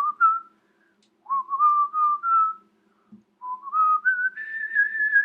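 A person whistling a tune in three short phrases, the last one climbing step by step to a higher held note.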